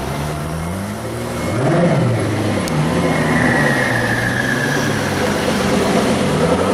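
Koenigsegg Agera's twin-turbocharged V8 being revved, the engine note rising and falling in several sweeps. A high whine glides down in pitch around the middle.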